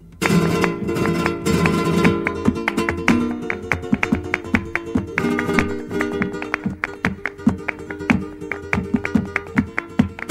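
Flamenco guitar playing bulerías, starting after a brief break: fast strummed chords give way to quick runs of sharp single-note attacks in a driving rhythm.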